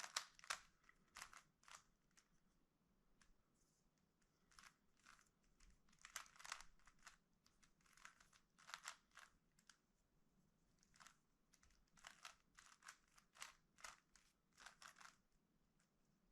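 Rubik's Cube being turned by hand: quick runs of plastic clicking layer turns in irregular clusters, with short pauses between runs of moves.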